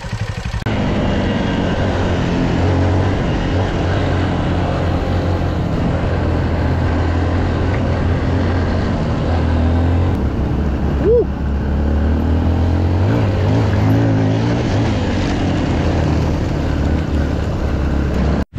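Dual-sport dirt bike engines running steadily under way, heard from on the rider's own bike, with a brief rising-and-falling chirp about eleven seconds in.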